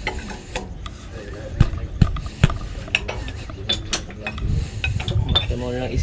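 Hand tools clicking and scraping against the bare metal valve gear of an Isuzu 4BC2 diesel's cylinder head: scattered sharp metallic clicks and ticks, a few louder ones about two seconds in.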